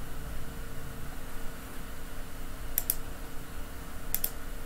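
Two sharp clicks of a computer mouse or keyboard, about a second and a half apart, each a quick double tick. A steady hum runs underneath.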